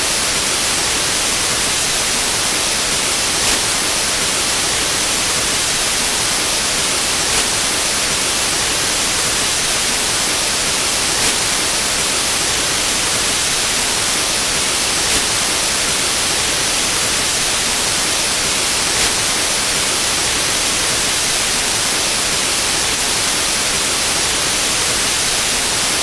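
Loud, steady TV-static white noise, an even hiss with a faint tick about every four seconds.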